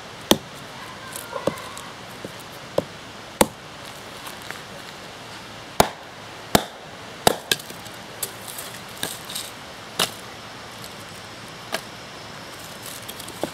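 Fiberglass-handled hand hatchet chopping and splitting small logs on a wooden stump chopping block: about a dozen sharp knocks of blade and wood at uneven intervals.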